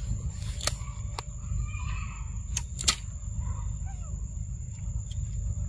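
Forest ambience: a low rumble on the microphone, a steady high-pitched whine, and a few sharp clicks and snaps, with a faint short falling animal call about four seconds in.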